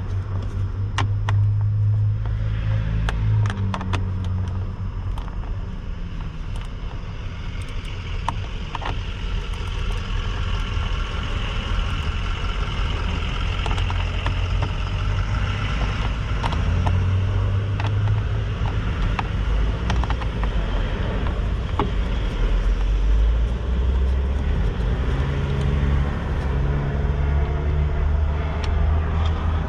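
A steady low rumble with a shifting hum. Over it come scattered sharp clicks, thickest in the first few seconds, from a 7 mm socket ratchet backing out small screws.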